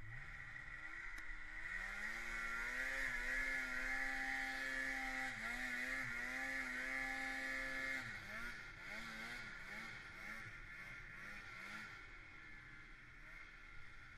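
Polaris snowmobile engine revving up over the first two seconds and held at high revs, dipping briefly twice. About eight seconds in it goes to a rapid run of short throttle rises and falls, then settles to a lower, steadier note near the end.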